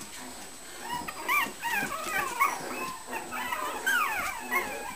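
Mini Shichon puppies whining and yipping in a string of short high-pitched calls, starting about a second in, as they wrestle in play.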